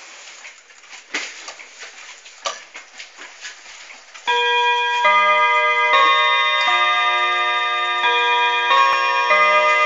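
A few irregular clicks and knocks, then, about four seconds in, a pendulum mantel clock's chime begins striking the half hour: a melody of ringing notes that change about once a second and ring on over one another.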